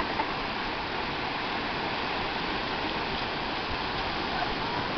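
Small surf breaking and washing up the shore as a steady, even rush of water.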